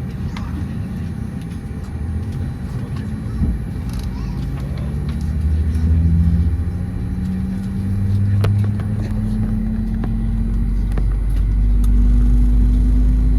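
Airbus A320 jet engines heard from inside the cabin: a low rumble with a hum that slowly rises in pitch as the engines spool up, getting louder toward the end.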